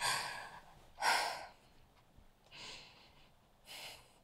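A person's shaky breaths and sniffs, four short ones about a second apart: the breathing of someone upset after a painful argument.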